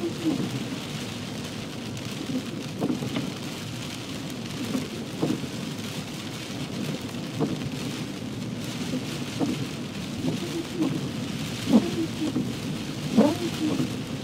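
Heavy rain on a moving car, heard from inside the cabin, with short irregular knocks every second or two over the steady hiss of the rain.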